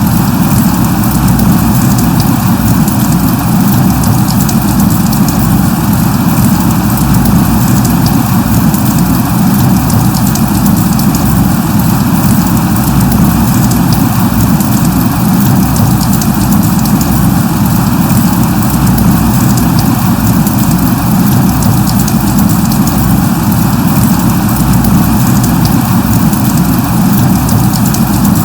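Steady light rain (drizzle) falling, a dense patter of fine drops over a constant low rumble.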